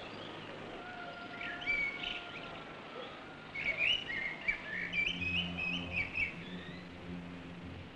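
Birds chirping in quick, short rising and falling calls, with a few longer whistled notes; a low steady hum joins about five seconds in.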